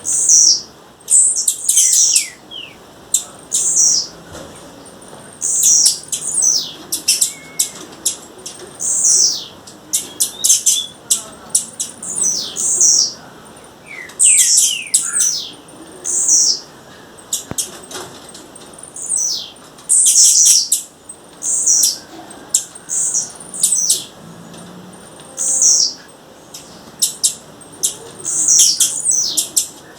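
Female blue-black grassquit (tiziu) calling: clusters of short, sharp, high chips that drop in pitch, repeated every second or two, with thin clicks in between.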